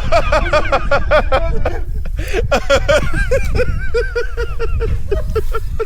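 A person laughing hard in a long run of short, repeated 'ha' bursts, a shrill, seagull-like laugh, settling into an even rhythm of about three bursts a second in the second half. A steady low rumble runs underneath.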